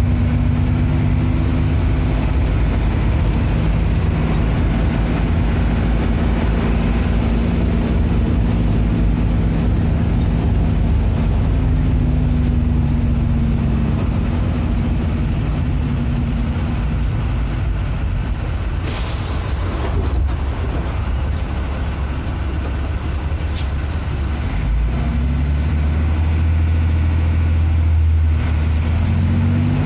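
City bus engine running as the bus drives along, heard from inside the bus. About two-thirds of the way through comes a sharp hiss of air from the brakes, a shorter hiss follows a few seconds later, and the deep engine drone strengthens near the end.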